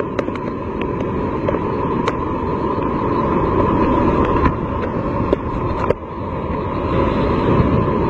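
Heavy ocean surf crashing and churning over rocks: a loud, continuous roar of whitewater with a few scattered sharp clicks and a brief drop about six seconds in.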